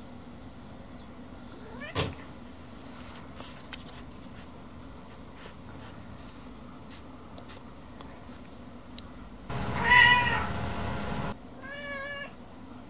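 A domestic cat meowing twice: a longer meow about ten seconds in, then a shorter meow with a wavering pitch near the end.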